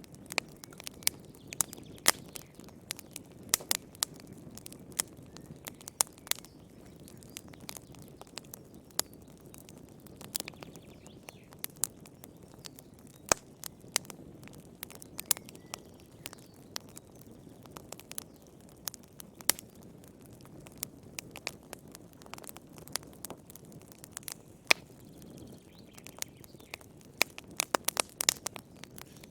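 Fire crackling in a fireplace: irregular sharp pops and snaps over a low, steady rumble of the flames, with a quick flurry of pops near the end.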